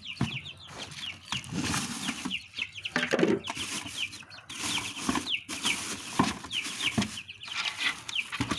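Young chicken chicks peeping continually: short, high, falling cheeps several times a second, with rustling and a few knocks underneath.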